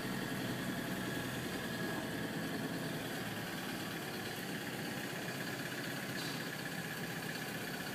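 Vehicle engine running steadily, heard from inside the cab as a low, even hum with a faint steady whine.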